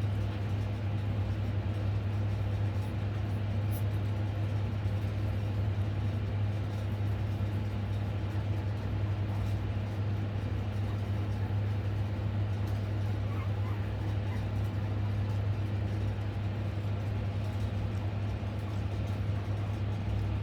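Steady low hum with an even rushing noise under it, unchanging throughout.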